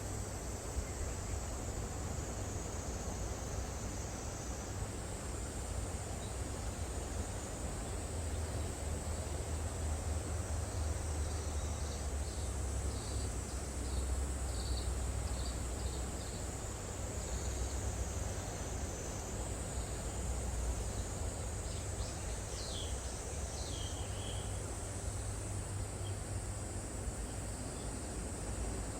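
Cicadas droning steadily in a high, hissing chorus that shifts slightly in pitch now and then, over a low rumble. Short high chirps, like a small bird's, come and go through the middle.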